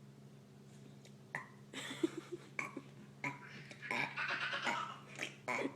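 A little boy burping several times, starting about two seconds in, the biggest burps around the four-second mark, over a steady low hum.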